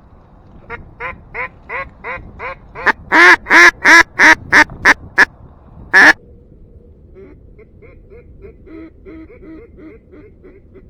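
Mallard hen quacks blown on a duck call: an evenly spaced run of about three quacks a second that builds to very loud, then one more loud quack, then a fainter run of quacks near the end.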